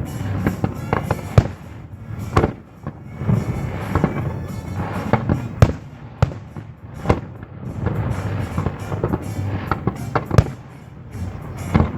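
Aerial fireworks exploding in a string of sharp bangs, several loud ones with smaller crackling reports between, over the show's jazz music soundtrack.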